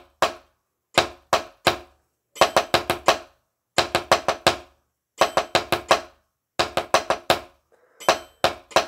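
Drumsticks playing a string of five-stroke rolls, two doubles and a single each, alternating hands. Each roll is a quick cluster of sharp clicks, one roughly every second and a half.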